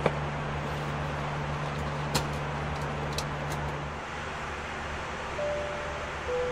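Steady rushing noise of an Airbus A319 cabin in flight, with a low hum that fades about four seconds in. A few sharp clicks come from handling at the galley. Near the end two short tones sound, a higher one and then a slightly lower one.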